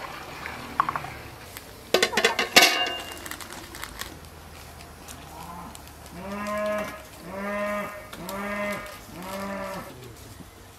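A short clatter of sharp clicks and knocks about two seconds in, then a farm animal calls four times in a row, each call under a second long and held at a steady low pitch.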